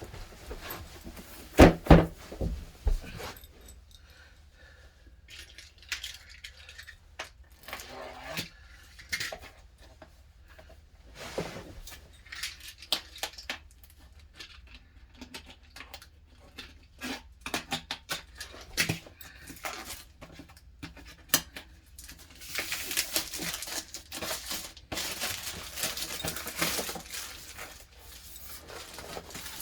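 Metal parts of an HVAC pipe extender kit being handled during unboxing: scattered clicks, clinks and knocks, with a stretch of rustling packaging in the last few seconds.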